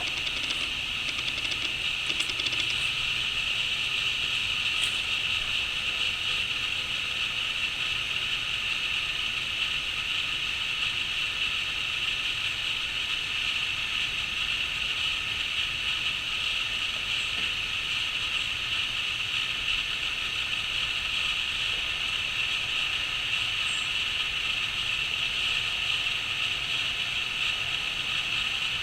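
Continuous chorus of crickets trilling steadily at a high pitch, with a couple of faint, brief high chirps above it.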